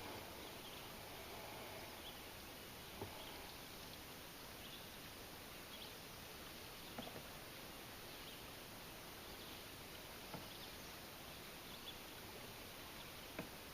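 Faint outdoor river ambience: a steady background hiss with scattered short high chirps and a few soft knocks.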